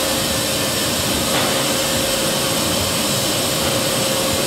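Steady machinery drone in a working whiskey still house: an even rushing noise with a constant hum tone, unchanging throughout.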